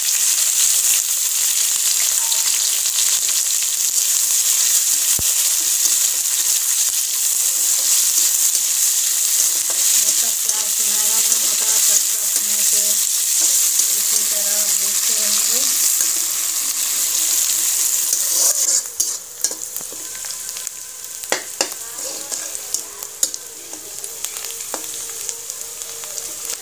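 Sliced onions sizzling in hot oil with cumin seeds in a metal kadhai, a strong steady sizzle. About two-thirds of the way through, the sizzle drops quieter and a metal spatula scrapes and clicks against the pan as the onions are stirred.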